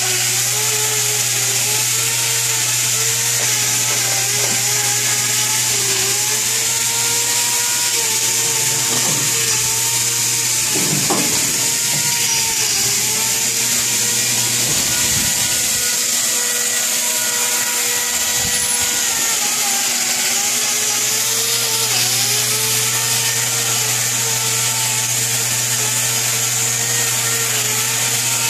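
Angle grinder with a hoof-trimming disc running continuously, its whine sagging in pitch again and again as it is pressed into a cow's hoof and then recovering, over a steady low hum. A sharp knock about eleven seconds in.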